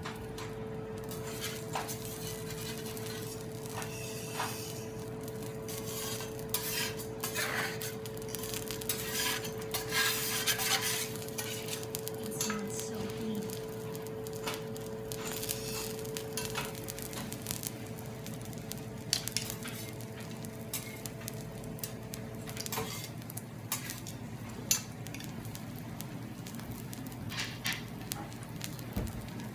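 Shrimp heads and asparagus sizzling on a hot teppanyaki iron griddle, with metal utensils clicking and scraping against the plate at irregular moments.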